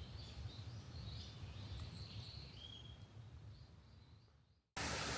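Small birds chirping faintly over a low rumble that fades out about four and a half seconds in; then a steady, much louder rushing noise cuts in suddenly.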